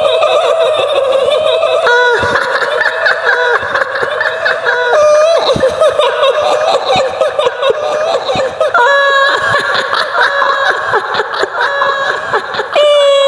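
High-pitched, drawn-out female cackling laughter in several long phrases, the shrill laugh given to the kuntilanak ghost.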